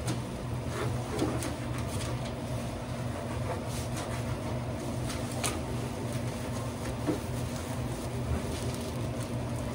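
Steady hum of running kitchen equipment, with a few short light rustles and taps as a sandwich is handled on wrapping paper with plastic-gloved hands.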